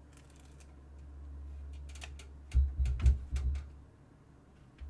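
A PC test bench carrying a mounted motherboard being shifted and turned around on a desk: a low rumble, then a cluster of heavy bumps and knocks about two and a half to three and a half seconds in, with a few light clicks.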